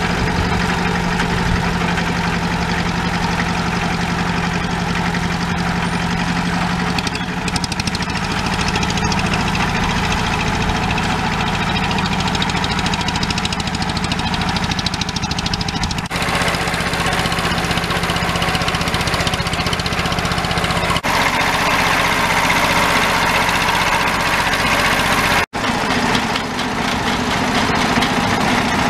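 1964 Deutz D15's single-cylinder air-cooled diesel engine running steadily under load, pulling a plough through soil. The sound changes abruptly a few times, with a brief dropout about three-quarters of the way in.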